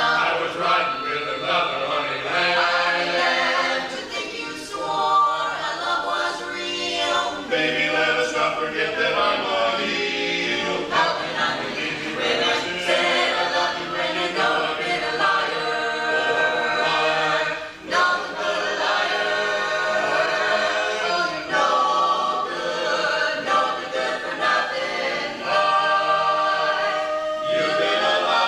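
Barbershop-style a cappella singing in close harmony by a group of voices, without instruments, with a brief dip in the middle.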